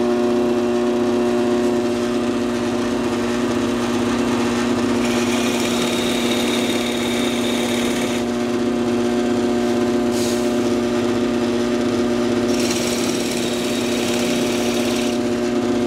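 Bench drill press motor running with a steady hum while a Forstner bit bores into a wooden board. The cutting is heard in spells: a long one about five seconds in, a short one around ten seconds, and another from about twelve to fifteen seconds.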